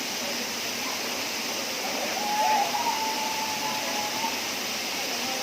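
Waterfall, a steady full rush of falling water. About two seconds in, a faint held high tone rises briefly over it for about two seconds.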